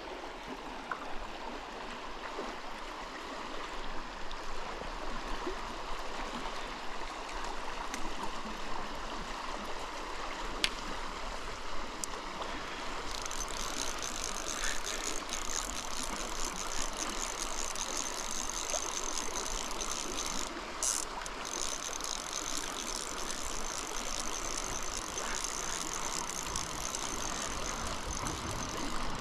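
Flowing river water, a steady rush. About thirteen seconds in, a high steady tone joins it, breaking off briefly about twenty-one seconds in.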